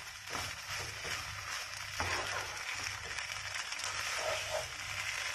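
Wooden spatula stirring and tossing noodles in a nonstick wok, scraping against the pan now and then, over a steady sizzle of frying.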